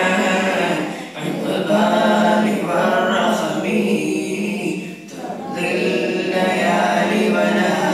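Many boys reciting the Qur'an aloud together in a steady chant, dipping briefly twice, about a second in and around five seconds in.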